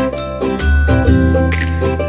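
Background music: a bright tune of quick plucked or mallet-like notes over a steady bass line.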